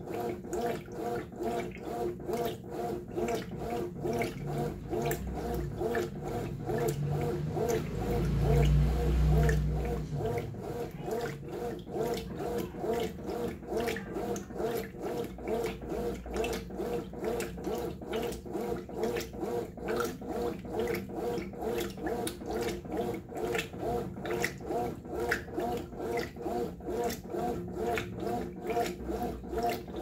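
Brastemp top-load washing machine agitating a load of clothes in water on its heavy cycle: short back-and-forth agitator strokes, about two or three a second, each with a slosh of water and a motor hum. A louder low rumble swells and fades about 7 to 10 seconds in.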